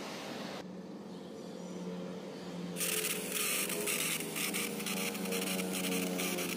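Small electric motor of a homemade RC tractor whirring steadily. About three seconds in, a rough, flickering hiss joins it and becomes the loudest part.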